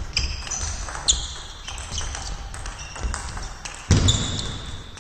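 Table tennis rally: the ball clicking off the bats and table in a quick exchange, with short high shoe squeaks on the hall floor. A heavy thud about four seconds in is the loudest sound.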